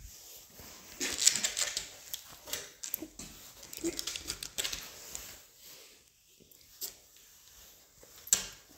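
A Sheltie scuffling and being handled on a rubber-matted grooming table: irregular clicks and rustling, busiest in the first half, with its fur brushing close against the microphone and one sharp click near the end.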